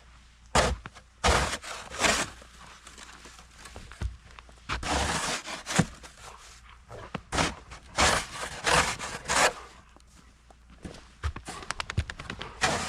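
Footsteps crunching through deep snow: a run of irregular, noisy crunches, some short and some drawn out, with a pause of a second or two near the middle.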